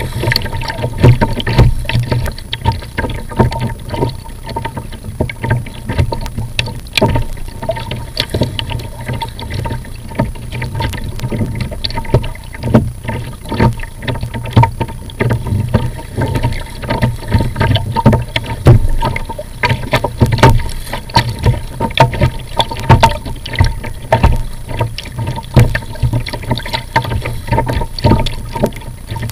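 Kayak being paddled through choppy water: paddle blades splashing and water slapping against the plastic hull in irregular splashes several times a second, over a steady low rumble.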